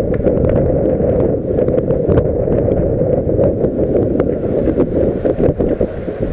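Wind buffeting the microphone: a loud, steady low rushing noise, with faint scattered ticks over it.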